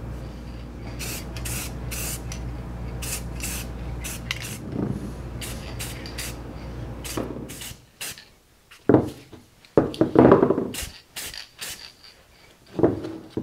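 Aerosol spray-paint can sprayed in a series of short hissing bursts, a dozen or more, as parts are painted.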